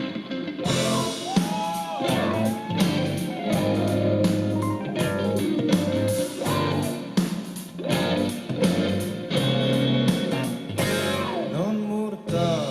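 A live rock band playing an instrumental passage, with electric guitar to the fore and drum hits throughout.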